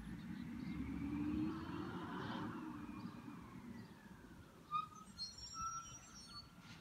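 A vehicle going by at a distance, its sound swelling and then fading over a few seconds with a slowly rising and falling pitch. Birds chirp in short calls in the second half.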